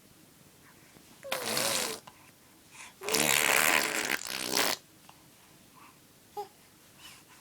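A baby blowing raspberries, buzzing her lips to make fart noises with her voice mixed in: a short burst, then a longer one about a second later.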